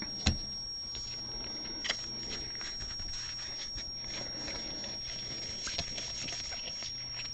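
Trading cards being handled and flipped: light rustling with a few sharp clicks, one about a quarter second in and another near two seconds. Under it runs a steady low hum and a high-pitched whine.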